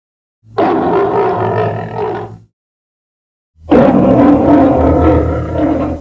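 Lion roar sound effect: two separate roars, the second starting about three and a half seconds in and running a little longer, with dead silence before and between them, as in edited sound-effect clips.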